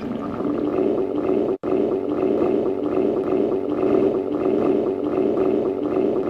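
Stomach growling: a continuous gurgling rumble with a quick, even pulsing, broken off for an instant about a second and a half in.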